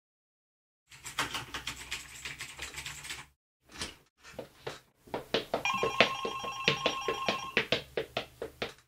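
A telephone rings once for about two seconds, past the middle, over a run of rapid sharp clicks that start about a second in and come and go.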